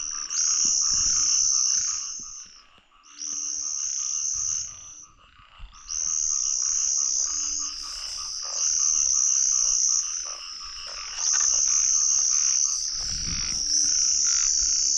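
Chorus of frogs calling: loud high-pitched trills in phrases of a second or two, recurring every few seconds, over a steadier layer of calls, with a few short low calls between them.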